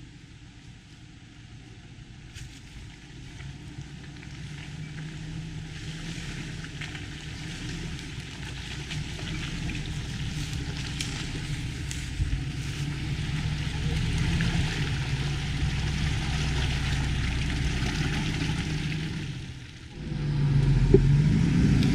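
Off-road vehicle's engine running and growing steadily louder as the vehicle comes closer, breaking off abruptly near the end.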